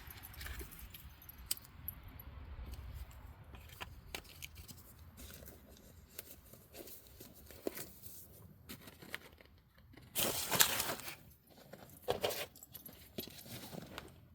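Scattered light metallic clinks and handling noises as tools and parts for an oil change are picked up and moved, with a louder burst of noise lasting about a second about ten seconds in.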